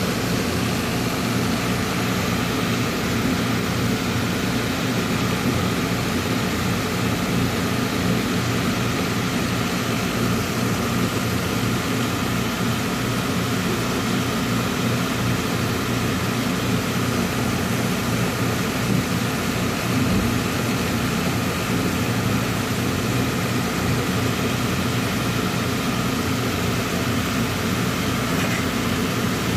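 Heavy truck's diesel engine idling steadily, with an even low pulsing.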